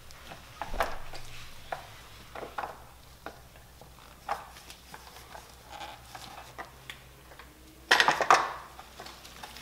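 Plastic airbox and drop-in panel air filter being handled: scattered light clicks and taps, then a louder clattering rustle about eight seconds in as the lid is pressed down on a filter that doesn't fit the box.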